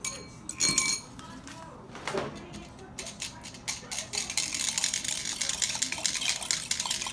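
A metal fork stirring in a drinking glass, clinking and scraping against the glass as wine yeast is rehydrated in warm water. A few sharp clinks come near the start, then from about halfway the stirring speeds up into a fast, dense run of clinks.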